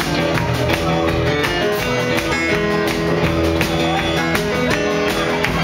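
Live band playing with drums, electric guitar and keyboard, held notes over a steady drum beat.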